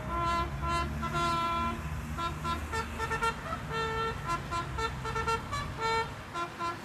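A brass instrument plays a slow, solemn melody of held notes, over a steady low rumble.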